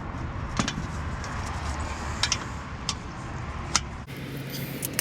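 Hand wrench working a skid-plate bolt under a car: a few scattered sharp metallic clicks over a steady low rumble, which changes abruptly about four seconds in.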